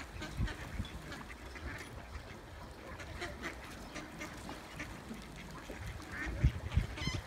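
Ducks quacking on and off, with a few low thumps about six seconds in.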